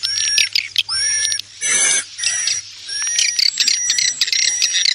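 Swiftlet calling (lure) sound: a dense mix of swiftlet chirps and twittering, repeated in quick runs. About two seconds in comes a short rushing flutter of wingbeats. The track is blended from recorded roosting calls and is played to draw swiftlets into a nesting house.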